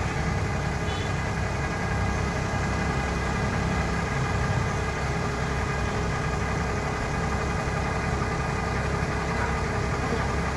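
Engine idling steadily at a constant pitch.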